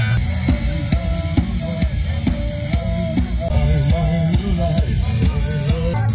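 Rock music with a drum kit keeping a steady beat, bass drum and snare, under a wavering melodic lead line.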